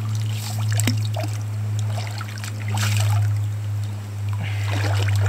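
A steel shovel scrapes into creek-bed gravel under shallow running water and lifts a load out, with splashing and water trickling off it. A steady low hum runs underneath.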